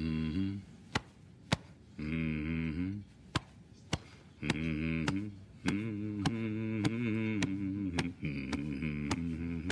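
Background music with a steady beat of sharp clicks, a little under two a second, under long held notes that step from pitch to pitch.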